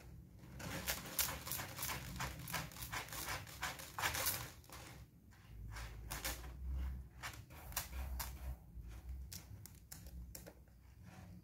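Kitten scratching and raking granular litter in a plastic litter box to cover its droppings: quick irregular scrapes and rattles of granules, in two bouts with a short pause about five seconds in.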